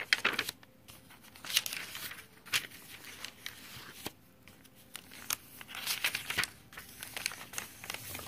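Paper pages of a handmade junk journal being turned by hand, rustling and flapping in a series of short bursts.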